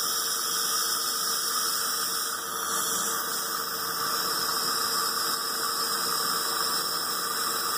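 Dental saliva ejector sucking in the patient's mouth: a steady hiss.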